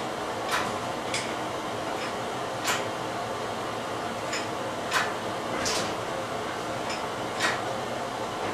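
Hand tools clinking and tapping on metal parts while working in a car's engine bay: irregular sharp clinks every second or two, the loudest about five seconds in, over a steady whir of background noise.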